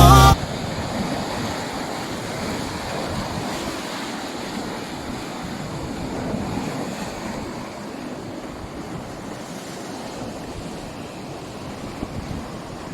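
Stormy sea surf washing and breaking against a rocky shore in a steady, swelling rush, with wind. A music track cuts off just after the start.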